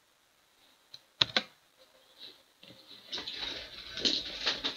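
Two sharp clicks about a second in, then a couple of seconds of scratchy rustling and handling noise with a few sharper knocks.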